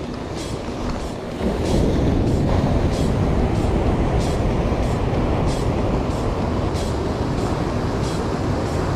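Sea surf breaking and washing over shoreline rocks, mixed with wind rumble on the microphone; the surge grows louder about a second and a half in. Faint light ticks recur about twice a second through it.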